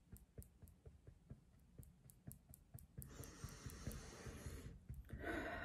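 Fingertips tapping the under-arm point of EFT tapping on the side of the ribs, through a knit sweater: faint quick taps about four a second. About three seconds in comes a long breath in, and near the end a sighing breath out.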